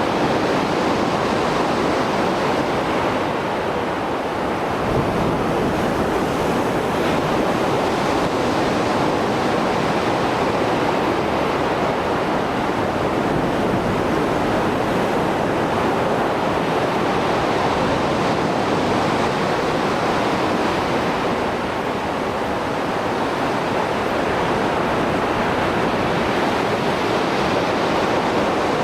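Mediterranean sea surf after a storm: waves breaking in a continuous wash with little let-up, swelling and easing only slightly.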